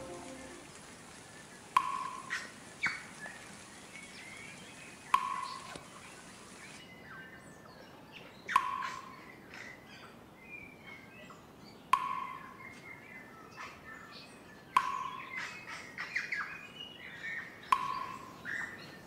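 Bird calls: a short, sharp call repeated at regular intervals of about three and a half seconds, with softer chirps in between.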